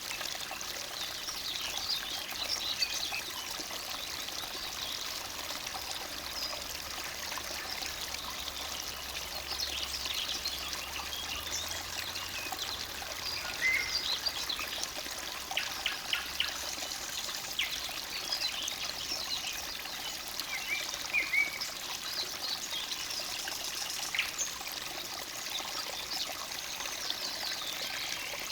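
Forest stream babbling steadily, with songbirds chirping and trilling over it throughout.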